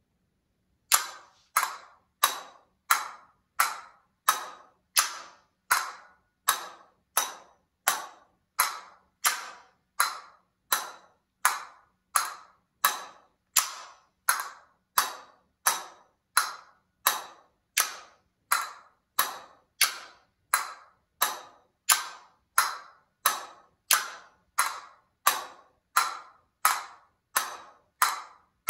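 A pair of castanets clacking in a slow, even pulse, about one and a half sharp clacks a second, starting about a second in. Each clack rings briefly. This is a practice exercise coordinating strikes and clashes of the castanets in different directions.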